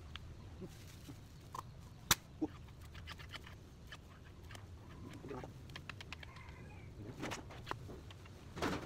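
Scattered metallic clicks and knocks of a lever-action grease gun being handled and loaded with grease, with one sharp click about two seconds in.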